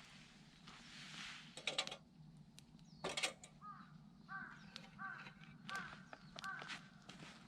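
A crow cawing four times in a quick, even series in the second half. Before it come two brief clusters of sharp knocks or clatters, the loudest sounds here.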